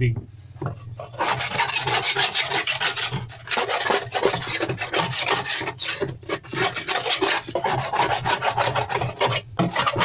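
A hand scraper blade rasping in rapid strokes across the bottom of a washing machine's plastic outer tub, chipping off caked, hardened mud deposits, with a few brief pauses between runs of strokes.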